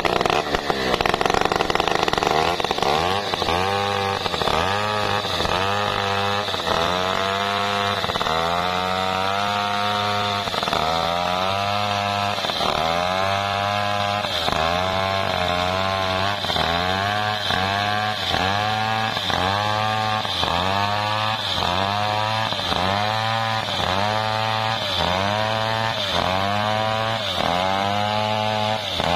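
Maestro mini two-stroke chainsaw ripping lengthwise along a coconut trunk under load. After the first couple of seconds its engine pitch rises and falls about once a second as the cut works along the log.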